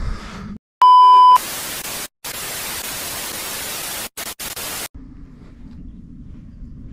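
Video-editing glitch transition: a short, loud test-tone beep followed by about three and a half seconds of TV static hiss that cuts out for an instant a few times. The hiss ends abruptly and gives way to a faint low rumble.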